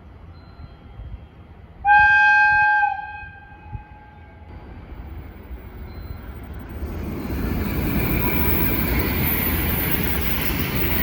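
A freight locomotive sounds one short whistle blast about two seconds in, a single pitched tone lasting about a second. From about six seconds on, the freight train's running noise grows, with low rumble and high rail hiss, and stays loud to the end.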